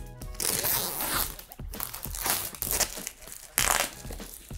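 Clear plastic shrink-wrap being torn and peeled off a cardboard box, crinkling in irregular bursts, with a sharp crackle about three and a half seconds in.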